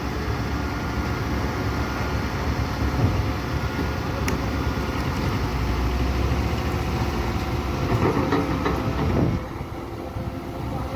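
Excavator running, with a steady engine drone and metal clanking; the clanking is busiest about eight seconds in, and the level drops a little just after nine seconds.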